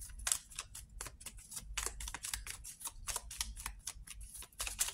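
A deck of cards being shuffled by hand: a quick, irregular run of short card flicks and snaps, several a second.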